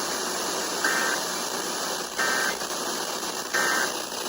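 Emergency Alert System end-of-message code: three short buzzy data bursts about a second apart, marking the end of the alert. They sound over a steady radio hiss.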